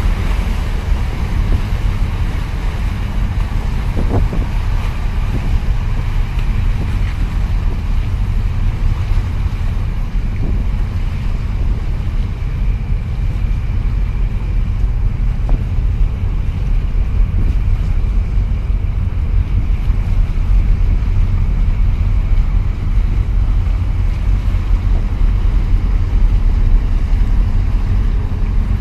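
Wind buffeting the microphone over a steady low rumble and the wash of water as a large container ship passes close. A small harbour workboat's engine joins near the end.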